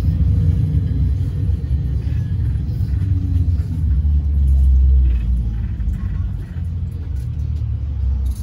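Low rumble inside a moving trolleybus, with a faint falling motor whine over the first two seconds. The rumble swells about halfway through, then eases.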